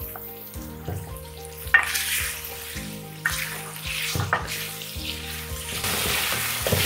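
Diced carrots sizzling in hot oil with fried onions in a metal pan, stirred and scraped with a wooden spatula that knocks against the pan several times. The sizzle picks up about two seconds in, as the carrots spread through the oil, and is loudest near the end.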